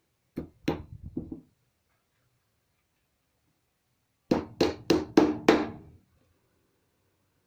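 Hammer blows on wood: a few knocks, then a run of five even strikes, about three a second.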